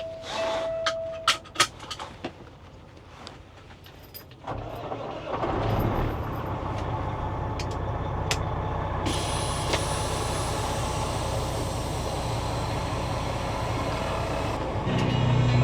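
A semi truck's diesel engine, heard from the cab. A few clicks and knocks come first over a low idle, then about five seconds in the engine picks up and runs steadily as the truck pulls away.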